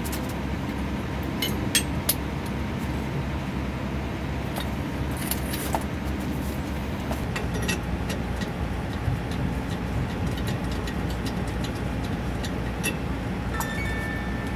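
Scattered metallic clinks and taps of tools and brake parts being handled at a truck's rear wheel hub, a few sharper ones about two seconds in, over a steady low rumble.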